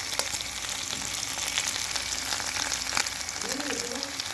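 Freshly caught squid frying in hot oil in a pan: a steady sizzle with scattered crackles and pops.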